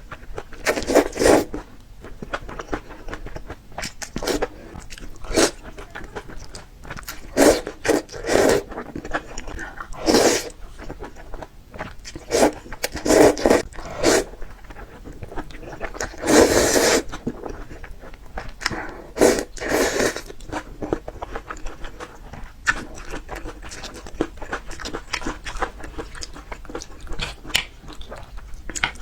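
Close-miked crunching bites and chewing of peppers: irregular crisp crunches, with louder bites every second or two.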